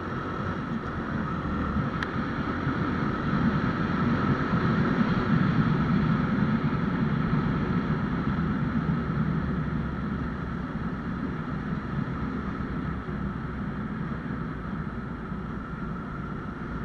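Honda Wave 125X motorcycle's single-cylinder engine running while riding, with wind buffeting the microphone. The engine and road noise grow louder a few seconds in, then ease back to a steady cruise.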